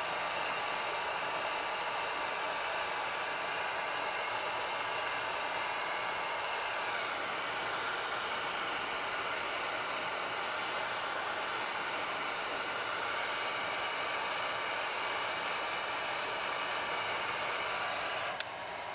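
Electric heat gun running steadily, its fan blowing hot air to shrink heat-shrink tubing onto a tie-down hook. It is switched off with a click near the end and winds down.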